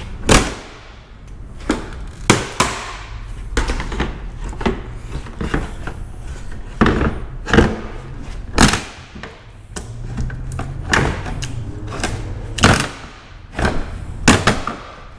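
Repeated sharp knocks and cracks, about one a second at irregular spacing: a pry bar levering a car's rear wing off its body, its plastic retaining clips giving way.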